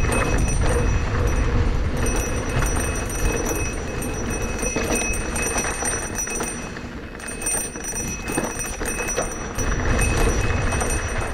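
Giant Trance E+ 2 electric mountain bike riding down a dirt trail: a continuous low rumble with rattling from the ride, and a steady high-pitched tone running over it.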